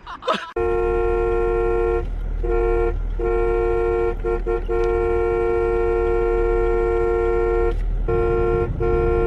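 A vehicle horn held down almost without a break, two steady notes sounding together, cut by a few short gaps, over a low rumble.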